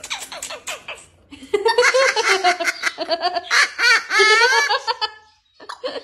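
Blue-fronted Amazon parrot vocalizing excitedly. It begins with quick clicky chatter, then about a second and a half in breaks into a run of loud, wavering, laugh-like calls lasting several seconds.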